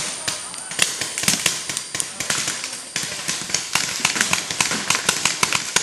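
Several paintball markers firing at once: a dense, irregular stream of sharp pops, several a second.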